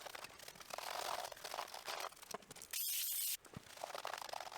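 Crinkly rustling and crackling from a Commodore 64 keyboard being handled and cleaned, with one short, sharp spray hiss about three seconds in.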